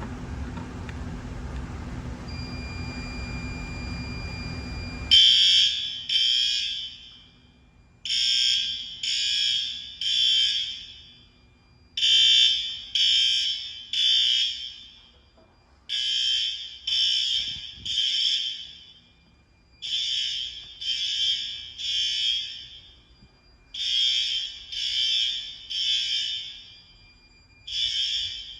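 Fire alarm horns sounding the temporal-three evacuation pattern: three half-second blasts, then a pause, repeating about every four seconds, which marks the system in alarm. They start about five seconds in, after a low rumbling noise and a steady high tone that begins about two seconds in.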